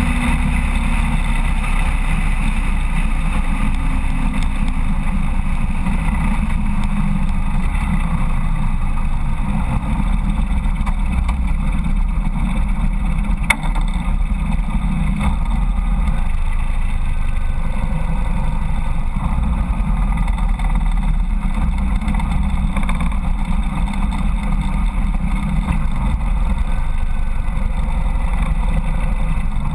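Harley-Davidson Road King's V-twin engine running steadily with a deep low rumble, with wind and road hiss in the first few seconds as the bike slows to idle and creeps along at walking pace. A single sharp click about halfway through.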